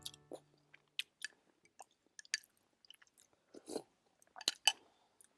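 A person chewing food close to the microphone: irregular wet mouth clicks and smacks, a few louder ones past the middle.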